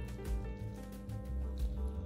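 Background music: a melody of short notes over repeated low bass pulses.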